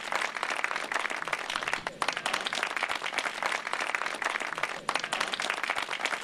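A crowd applauding: many people clapping together in a dense, steady patter.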